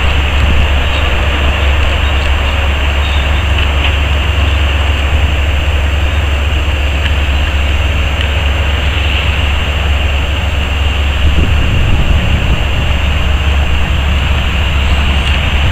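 Heavy diesel earthmoving machinery, a Cat 385 hydraulic excavator loading a Caterpillar haul truck, running with a steady low rumble.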